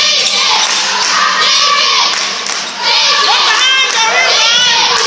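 Basketball spectators shouting and cheering in a gymnasium, with players' sneakers squeaking on the hardwood court in short high chirps. The noise eases briefly midway and then picks up again.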